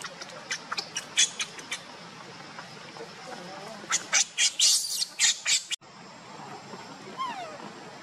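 Newborn macaque giving quick, short, high-pitched squeaks, then a louder run of shrill shrieks that breaks off abruptly. A single short call falling in pitch follows near the end.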